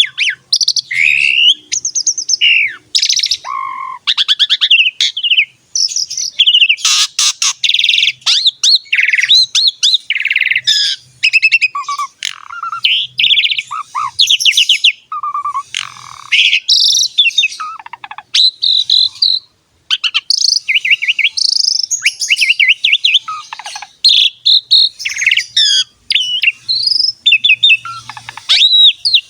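Pied starling (jalak suren) in full song: a loud, almost unbroken stream of varied whistles, gliding notes, fast chattering rattles and harsh notes, with only brief breaks.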